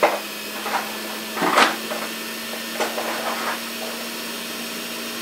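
Electric hand mixer running steadily while it mixes flour, cornstarch and milk powder in a bowl, with a few short louder clatters, the loudest about a second and a half in.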